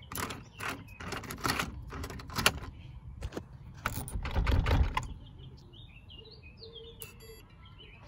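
A door being pulled shut by its lever handle: a run of clicks and knocks from the handle and latch, with the heaviest thud about four to five seconds in. Birds chirp in the last few seconds.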